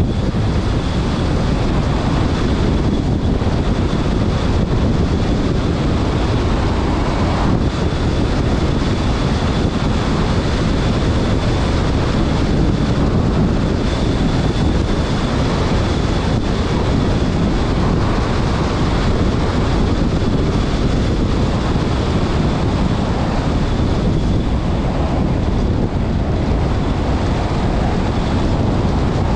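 A vehicle driving fast along a gravel road: steady tyre and road noise mixed with heavy wind buffeting on the microphone, and a faint steady high whine.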